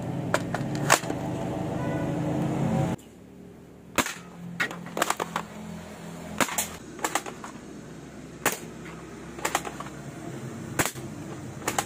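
Spring-powered QBZ-95 replica airsoft rifle being handled and fired: a string of sharp plastic snaps, irregularly spaced and some in quick pairs, starting about three seconds in. Before them a steady layered tone with a couple of clicks cuts off abruptly.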